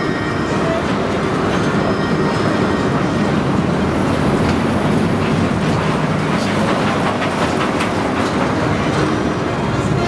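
Train of linked bobsled cars on the Schweizer Bobbahn, a bobsled roller coaster, rolling through its half-pipe trough, with a steady rush of wheels on the track.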